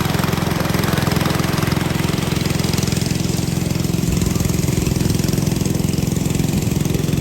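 Motor-driven corn sheller running steadily: an engine's even running with a dense hiss of shelling on top, the hiss thinning a little about three seconds in.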